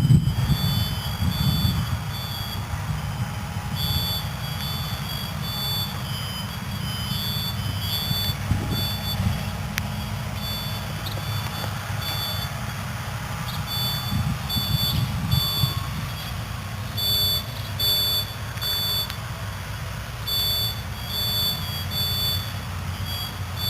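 Several vehicle backup alarms beeping at once, out of step with each other, over a low engine rumble.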